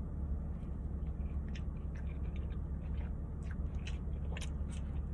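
Close-miked chewing of a loaded steak and cheese sub, with scattered soft mouth clicks over a steady low hum.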